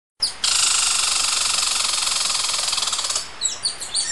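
Edited-in sound effect: a quick whoosh into a steady, bright hiss lasting about three seconds, then a run of short, high, bird-like chirps.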